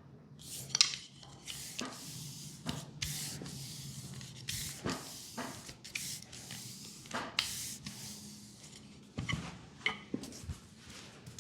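Hands rubbing and stroking the skin of a leg in a massage: an uneven string of short swishing rubs, one or two a second, with a sharp slap or click just under a second in.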